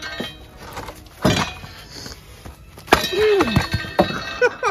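Thick dead branch being struck to break it: about four heavy thuds and cracks, the loudest about three seconds in.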